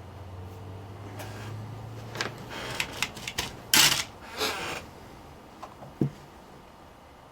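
Workbench handling noise: a run of sharp clicks, taps and short rustles from hands working with tools and wires, loudest about four seconds in, with one last click near the end. Under the first few seconds runs a low steady hum that stops about three seconds in.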